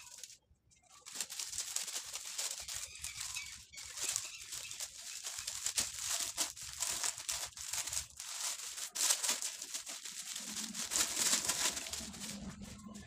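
Stiff glittery sheet crinkling and rustling as it is handled and pulled off the desk, a dense run of crackles starting about a second in.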